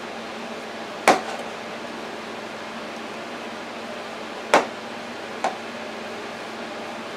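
Sharp knocks against a ceramic bowl and counter while a sausage-and-breadcrumb mixture is worked by hand: two loud knocks, about a second in and about four and a half seconds in, and a lighter one shortly after, over a steady background hum.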